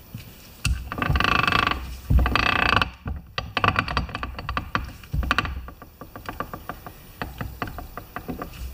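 Gears in an opened MTD lawn tractor differential turned over by hand: two short loud growling grinds in the first three seconds, then a run of rapid clicking and chattering. It is the gear growl and chatter being traced as the fault in the differential.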